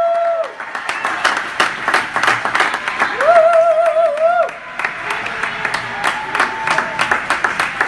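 Audience applauding, with a long, high drawn-out cheering call fading out about half a second in and another, wavering one from about three to four and a half seconds in.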